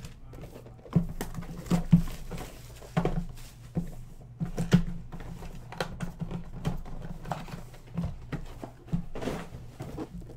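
Irregular taps and knocks as cardboard trading-card boxes and foil packs are handled and set down on a tabletop, with a faint steady low hum underneath.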